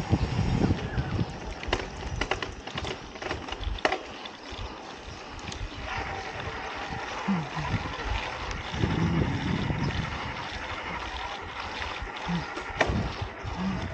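Riding noise from a mountain bike rolling along a paved road: wind buffeting the camera microphone in gusty rumbles, over a steady hiss of tyres, with a few sharp clicks and rattles from the bike.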